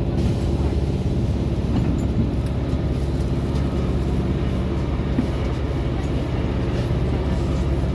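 Cabin sound of a SVARZ 6235 trolleybus on the move: a steady hum of several held low tones from the electric drive, over road and tyre rumble.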